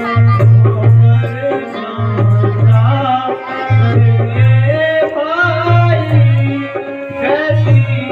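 Music with tabla-like hand drums keeping a steady, repeating beat under a wavering melody line.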